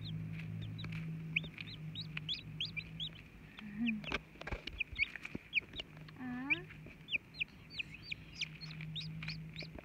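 Newly hatched chicks peeping: a rapid run of short, high-pitched chirps. The mother hen answers with a low cluck twice.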